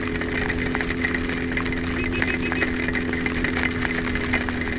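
Honda CBX 750's air-cooled inline-four engine running at a steady, unchanging pitch while riding, under a steady hiss of heavy rain and road spray.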